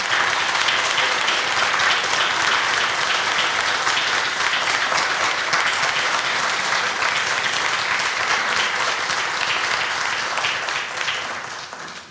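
An audience applauding steadily: many hands clapping, tapering off and dying away near the end.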